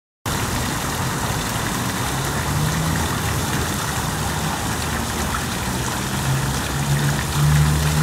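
Tiered park fountain splashing: a water jet falls into its scalloped bowl and spills over the rim into the basin below, making a steady hiss of falling water. Under it a low hum swells and fades, loudest near the end.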